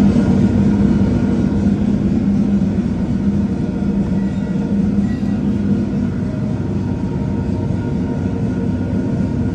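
Ship's engine-room noise, played back at an engine room display: a loud, steady mechanical drone with a deep hum, easing slightly after about six seconds.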